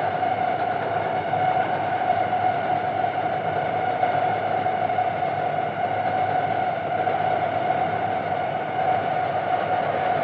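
Experimental noise music: a steady, dense drone of layered noise, with a strong mid-range band and fainter steady tones above it, machine-like and without beat or melody.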